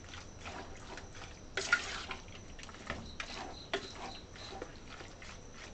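Marinated beef being mixed by hand in a stainless steel pot: irregular soft wet squelches and clicks from the moist, spice-coated meat, with one louder smack about a second and a half in.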